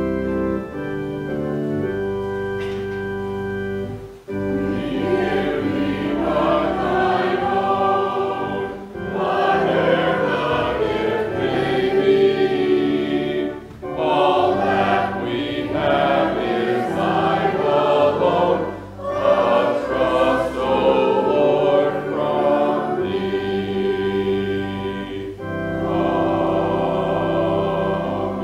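Church organ playing alone for about four seconds, then voices join in singing a hymn or anthem with the organ accompanying, in phrases with short breaks between them.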